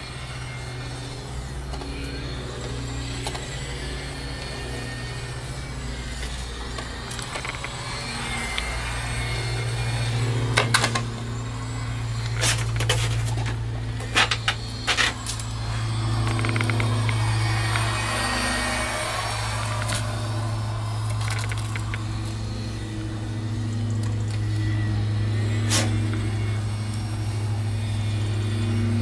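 A 1/18-scale Traxxas LaTrax Rally electric RC car lapping a paved track: its brushed electric motor whines, rising and falling as it speeds up and slows, over tyre noise and a steady low hum. A few sharp knocks come in the middle and once near the end.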